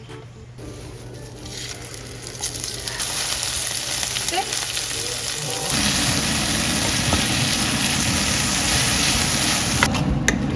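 Food frying and sizzling in a hot pan, the sizzle building up and growing louder about halfway through.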